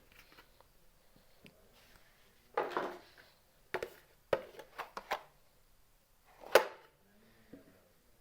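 Small plastic toy kitchen pieces being handled and set down: scattered clicks and clatters. There is a short rustling scrape about two and a half seconds in, and the loudest clack comes about six and a half seconds in.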